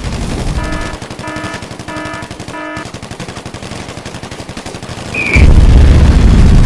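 Rapid machine-gun fire, about ten shots a second, with four short horn-like beeps of one pitch over it in the first half. About five seconds in, a loud low rumble takes over.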